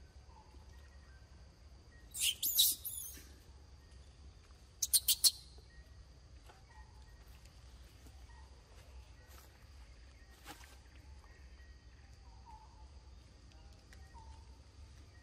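Steady high insect drone with faint scattered chirps. About two seconds in comes a loud, shrill wavering call, and about five seconds in four quick, sharp chirps.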